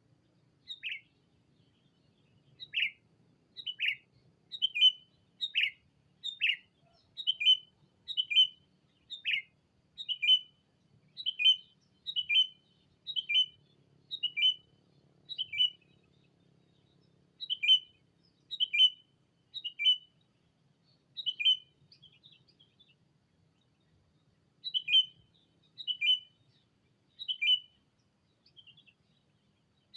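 Sooty-headed bulbul (kutilang) decoy calling to rival birds: short, sharp calls repeated about once a second, with two brief pauses.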